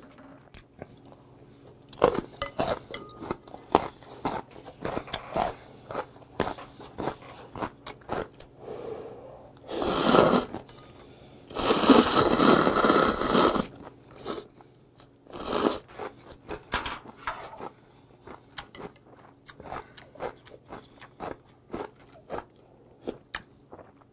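Close-up eating sounds of ramen noodles: wet chewing and mouth clicks throughout, with two long noisy slurps of noodles about ten and twelve seconds in.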